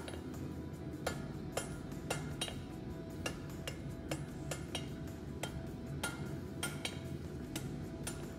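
Hand hammer striking hot steel on an anvil, sharp metallic blows at about two a second with a light ring, as a bar is forged. Music plays underneath.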